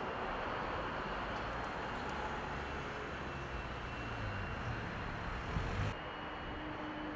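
Outdoor urban ambience of steady, distant traffic noise. A brief low rumble swells just before the background changes abruptly about six seconds in.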